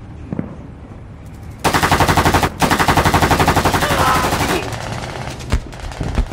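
Rapid automatic gunfire, two long bursts, the first short and the second about two seconds long, with a few single cracks after.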